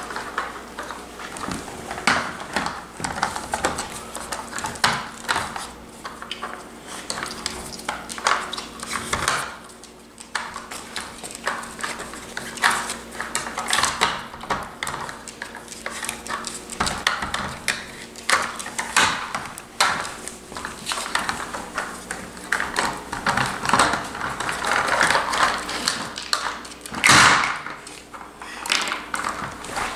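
Plastic dog puzzle toy pieces clicking and clattering on a hard floor as two bull terriers nose at the sliding covers to get the treats. The knocks come irregularly, with one louder knock near the end.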